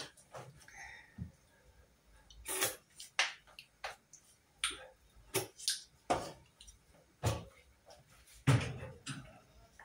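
Wooden spatulas knocking and scraping against a metal cooking pot on a gas stove: a string of sharp, separate knocks, the loudest near the end.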